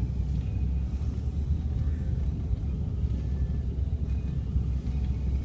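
Steady low rumble of a moving car's engine and road noise, heard from inside the cabin.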